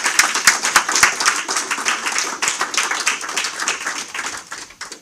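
A small audience applauding with hand claps, thinning out and dying away near the end.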